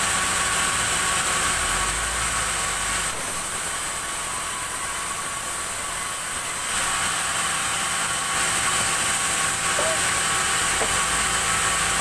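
Sawmill band saw running steadily while cutting a slab of black acacia, a machine drone with a hissing blade noise. The blade noise eases for a few seconds near the middle and rises again after about seven seconds as the wood is pushed through.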